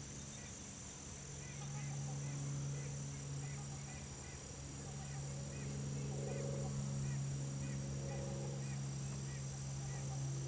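A string of short, faint honking calls from waterfowl, repeating about every half second over a steady low hum.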